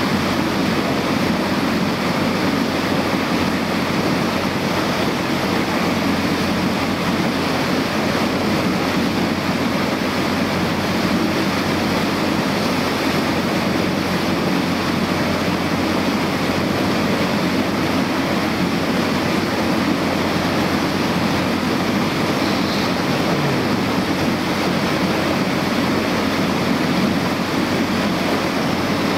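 Small motorboat under way: a steady engine drone under water rushing along the hull, with wind on the microphone.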